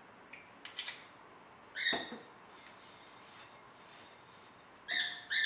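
Pet bird squawking: one short, sharp call about two seconds in and another near the end.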